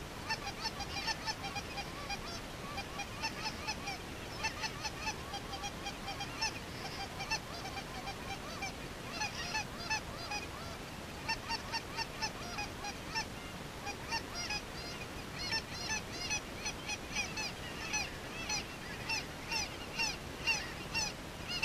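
A large flock of geese calling, a continuous chorus of many short overlapping honks and yelps.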